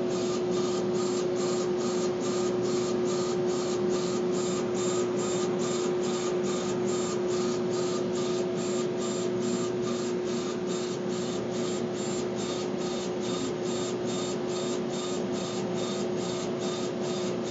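Laser engraver raster-engraving a wooden drumstick turning on a rotary attachment: a steady machine hum with one held tone, and a whine that pulses evenly about two or three times a second as the laser head sweeps back and forth.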